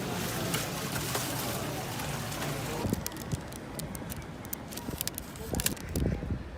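Street-food stall cooking and serving sounds: a steady hiss for about three seconds, then a quieter stretch with scattered clicks and clatter.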